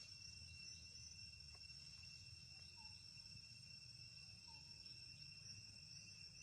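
Faint, steady high-pitched insect trilling over a low background rumble.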